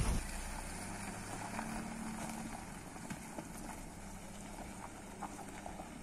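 Tata Nexon SUV's engine running low and steady as the car rolls slowly down a dirt track, with faint scattered ticks from the tyres on the ground.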